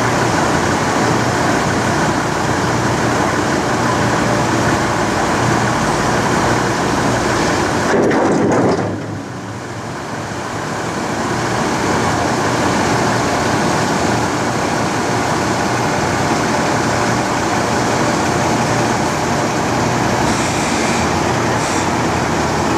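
Harbour crane's machinery running with a loud, steady mechanical drone. The sound drops suddenly about nine seconds in and builds back up over the next few seconds.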